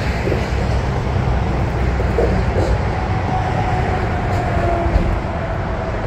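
Busy freeway traffic passing close by: a steady rush of tyres and engines, with a faint whine near the middle that drifts slightly lower in pitch.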